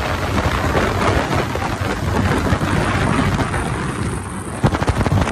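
Wind rushing and buffeting the microphone of a Royal Enfield Hunter 350 at highway speed, over the steady run of the bike's engine, with a few sharp wind thumps near the end.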